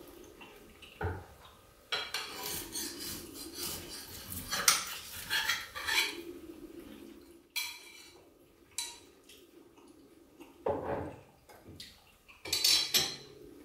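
Steel knife and metal spit-roast skewer clinking and scraping on a wooden board as grilled pork is slid off the skewer and cut: a busy run of quick scrapes and taps, then a few separate clinks.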